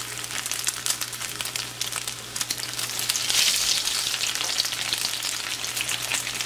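Dried-shrimp and egg patties sizzling and crackling in hot oil in a skillet while they are turned over with a wooden spatula. The sizzle grows louder about three seconds in.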